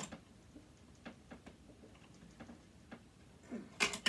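Light, irregular clicks and taps of small metal parts and a screwdriver being handled, with a few louder clicks near the end.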